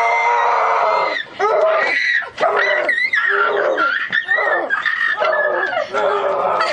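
A boy's voice screaming: one high scream held for about a second, then a run of short, yelping, bark-like cries.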